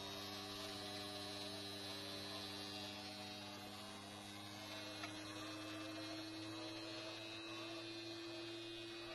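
Mahindra Bolero's EGR actuator humming steadily with the ignition switched off and the key out, with a single click about five seconds in. The hum is the sign of a faulty actuator, whose magnet system keeps buzzing until the vacuum bleeds off.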